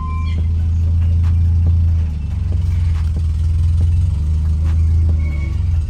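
Volkswagen Saveiro G4 pickup's engine running low and steady at idle while the car is eased forward at a crawl, the level dipping briefly about two seconds in.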